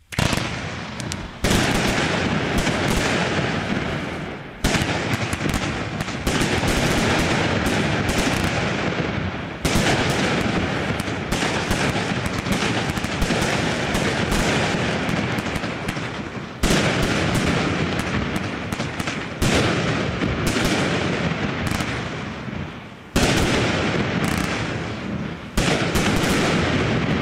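A 54-shot fireworks cake (battery) firing 20 and 25 mm shots in rapid succession, launches and bursts running together in a continuous barrage. The volley surges loud again abruptly several times as new sequences begin.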